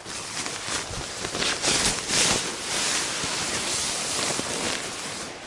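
Hammock fabric and a sleeping bag rustling continuously as they are handled and pushed around inside the hammock, loudest about two seconds in.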